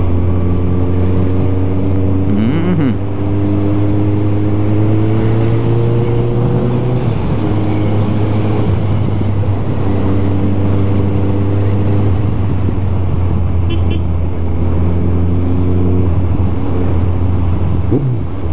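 Motorcycle engine running steadily while riding in traffic. The revs climb gently, ease off about seven seconds in, then hold steady, over wind and road noise.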